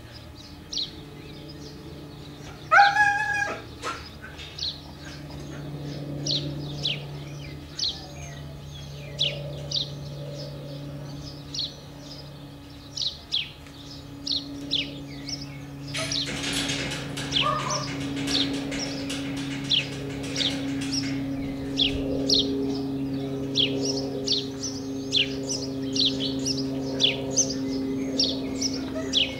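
Small birds chirping in short, quick falling notes, on and off, with one loud brief call about three seconds in and a steady low hum underneath. The kennel's huskies stay quiet.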